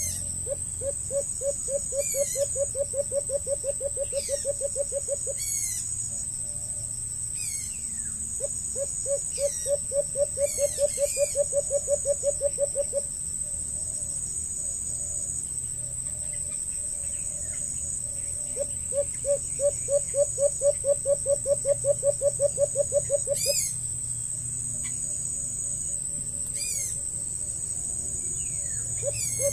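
A bird calling in a rapid series of low hooting notes, about seven a second and each series lasting about four seconds, given three times and starting again at the very end. Short high descending whistles from another bird come every few seconds over a steady high insect buzz.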